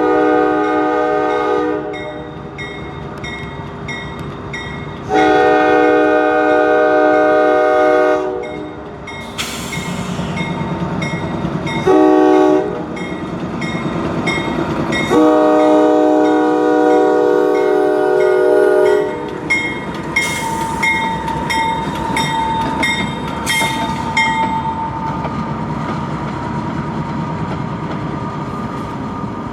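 Diesel freight locomotive's air horn sounding the grade-crossing signal: two long blasts, a short one, then a long one, while a bell rings steadily about one and a half strikes a second. After the horn the locomotive keeps running and rolling.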